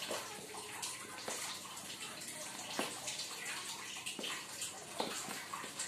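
A spoon stirring a flour, sugar and egg dough in a plastic tub, which is turning stiff: a steady rough scraping and rustling with several light knocks of the spoon against the tub.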